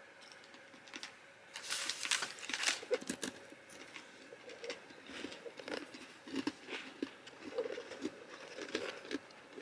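Light handling sounds: a ceramic coffee mug set down on a table, with scattered small knocks and rustling of hands and clothing.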